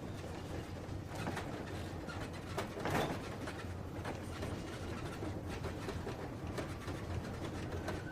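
Train running: a steady low rumble with frequent rattles and clicks, and a louder clatter about three seconds in.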